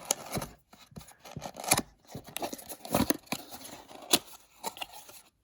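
Packaging being handled during an unboxing: rustling and tearing with irregular sharp clicks and knocks, several louder ones scattered through.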